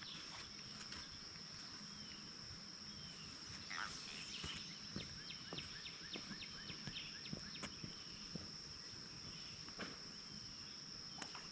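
A freshly caught channel catfish croaking, the grunting clicks it makes with its pectoral spines, heard as a run of short clicks a few times a second about midway. A steady high insect drone runs underneath.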